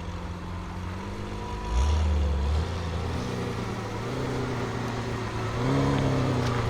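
BMW M5 F90's twin-turbo V8 with a Supersprint exhaust running at low revs. The low rumble swells briefly about two seconds in, and the engine pitch wavers up and down in the second half.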